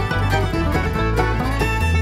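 Background music: a plucked-string tune in a bluegrass style over a steady bass line that steps from note to note.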